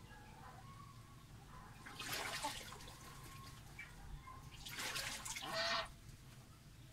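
Domestic goose on a straw nest making two short, noisy, breathy bursts, about two seconds in and again around five seconds in. The second burst is longer and ends on a brief low note, and faint soft calls come in between.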